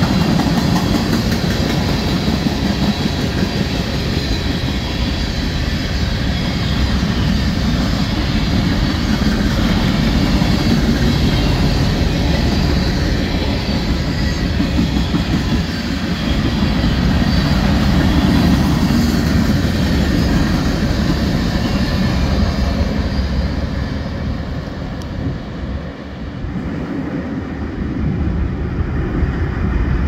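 Manifest freight train's cars (tank cars, covered hoppers, boxcars) rolling past on steel wheels in a steady, loud rumble, with strong wind buffeting the microphone. The rolling noise dips briefly a few seconds before the end, then comes back up.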